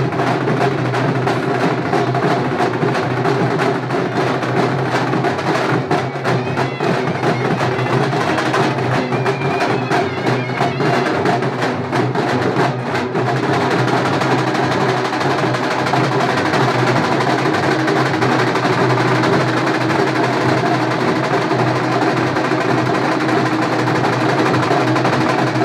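Live drum band playing loud, dense percussion, with a run of sharp, rapid strikes in the middle.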